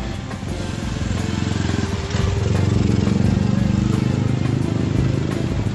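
Motorcycle engine running underway, its drone growing louder about two seconds in.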